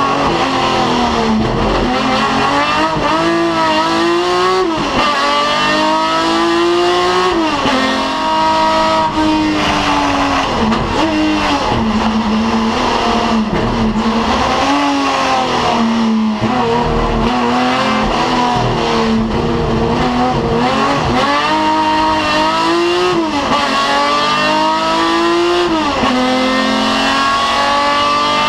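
Race-prepared BMW 3.0 CSL straight-six heard from inside the car at full throttle, the engine note climbing hard through the gears with a sharp drop at each upshift, then falling away under braking before building again, several times over.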